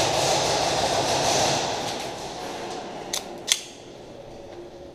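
A loud rushing hiss that fades away over about two seconds, then two sharp airsoft gun shots about half a second apart.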